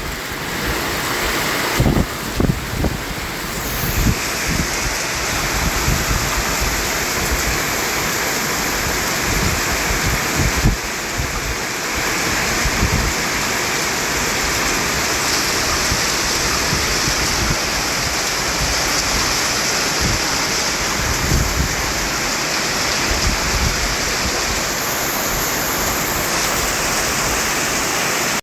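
Continuous white noise for baby sleep: a steady rushing hiss with an uneven low rumble beneath it.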